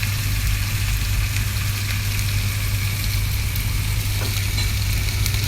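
Wagyu steak sizzling as it sears in hot oil in a frying pan, a steady hiss over a constant low hum.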